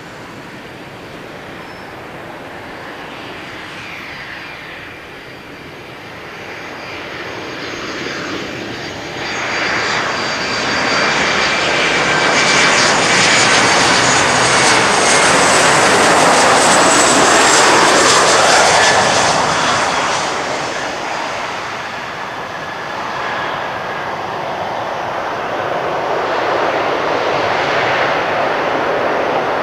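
Boeing 737-400 airliner's jet engines on a landing approach: a rising jet noise with a high whine that peaks as the aircraft passes close, about halfway through. After touchdown the engines run up again near the end in reverse thrust, braking hard on the short runway.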